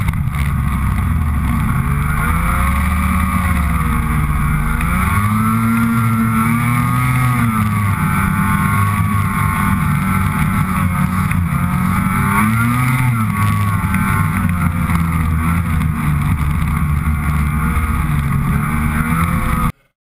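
Snowmobile engine running hard under the rider, its pitch rising and falling several times as the throttle is opened and eased. It cuts off suddenly near the end.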